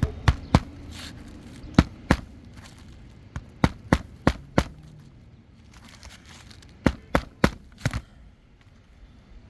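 Roofing nails being driven into a replacement asphalt shingle: about thirteen sharp strikes in four quick bursts of two to five.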